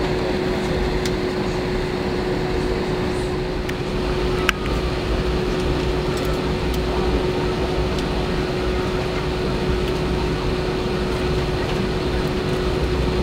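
Airliner cabin noise during taxi, heard inside the cabin: a steady hum of the jet engines and air-conditioning, with one constant whine over it. A single short click sounds about four and a half seconds in.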